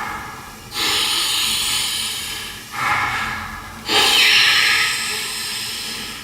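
A man taking three long, hard, hissing breaths in a row, the last one the loudest and longest.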